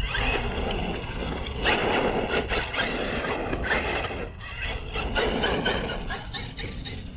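Traxxas X-Maxx 8S RC monster truck's brushless electric motor whining and its tyres rushing over asphalt and grass in several short bursts of throttle, each about a second long, with brief lulls between.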